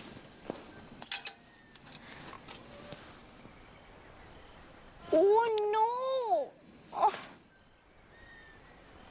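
Crickets chirping in a steady, pulsing high trill, with a few light clicks as a bicycle is handled. About five seconds in, a girl lets out a drawn-out, wavering groan that rises and falls twice, with a short second sound a moment later.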